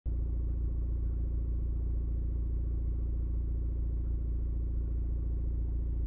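Honda Accord 2.0T's turbocharged four-cylinder, fitted with a Civic Type R turbo and a Thermal R&D exhaust, idling steadily with an even, mostly low-pitched sound.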